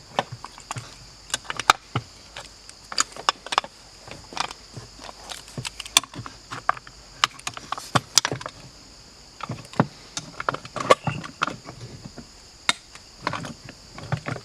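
Irregular metal clicks and knocks of a flathead screwdriver prying the throttle mechanism out of an old outboard remote control box, with parts rattling as they come loose.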